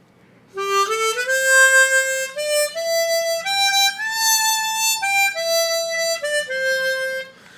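Chromatic harmonica played one note at a time, stepping up a scale and back down with a couple of notes held longer. Its tone is judged more solid and more airtight than the newly unboxed Hohner Super 64's.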